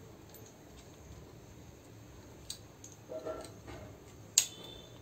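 A few light clicks from a dog's harness buckle and clip being fastened, the sharpest about four seconds in.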